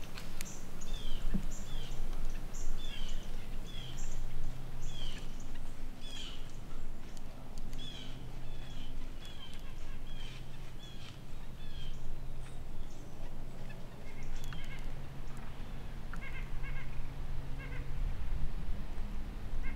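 Songbirds singing: a run of short, high, downward-slurred notes about two a second, then after about twelve seconds a few lower chirps. A steady low hum sits underneath.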